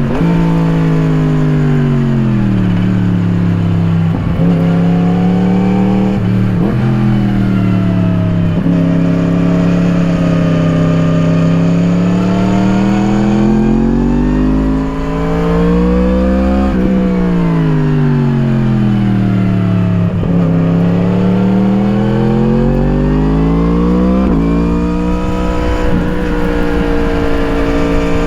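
A 2017 Yamaha MT-10's crossplane inline-four running through an Akrapovič slip-on exhaust as it is ridden through corners. The engine pitch falls as the bike slows, then climbs again under acceleration, with quick drops between gears.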